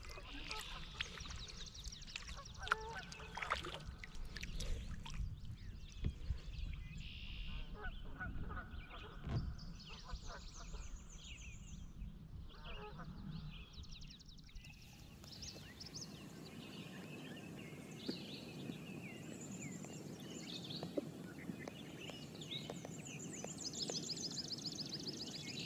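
Wild birds calling and trilling, with knocks and water noise from a kayak paddle through the first half.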